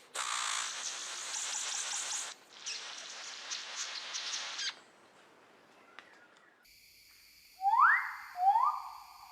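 A steady hiss that breaks off twice, then after a quiet pause a bird gives two loud calls about a second apart, each a quick upward sweep in pitch that levels off.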